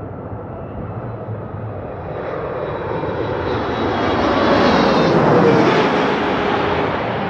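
A Boeing 777-300ER's GE90 jet engines passing low overhead on final approach: a rushing jet roar with a steady whine that swells to its loudest about five seconds in. The engines' tones drop in pitch as the airliner goes by.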